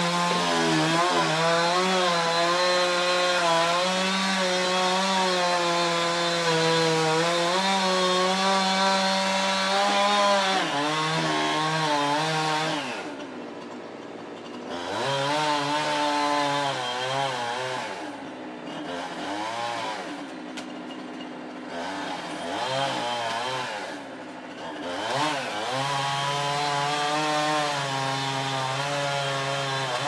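Gas chainsaw cutting into a dead ash trunk, held at steady full throttle for about ten seconds. Then the engine drops back and is revved up and down several times before running steady again near the end.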